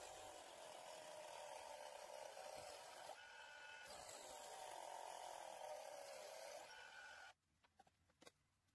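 Small homemade disc sander running with a piece of wood held against its spinning sanding disc: a steady grinding hiss that cuts off abruptly about seven seconds in, followed by a few faint clicks.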